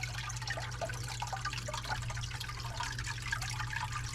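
Water trickling and dripping in a reptile enclosure's pool, with many small splashes over a steady low hum.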